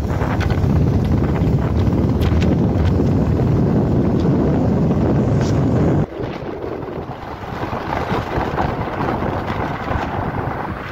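Wind buffeting the microphone of a moving motorcycle, over the bike's engine and road noise. The rush drops suddenly about six seconds in and is lighter after that.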